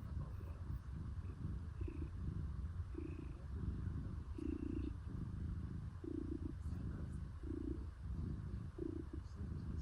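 Domestic cat purring steadily at close range, the purr swelling about once every second and a bit with each breath.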